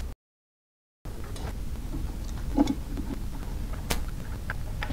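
Faint metal clicks and taps of hand tools and bolts as the articulating-arm receiver bracket is fastened to the belt grinder's frame, with one sharper click about four seconds in, over a low steady hum. The sound drops out completely for about a second near the start.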